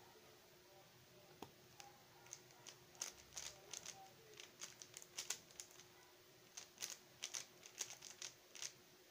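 A Xin Lexin stickerless 3x3 speedcube being turned fast during a solve: rapid runs of light plastic clicks as the layers snap around. The clicking starts about three seconds in, pauses briefly around six seconds, and stops near the end.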